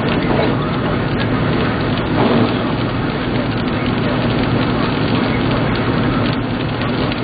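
Rain and scattered hailstones hitting a moving car, over steady tyre noise on the wet road, with a few sharp clicks of single stones among the constant patter.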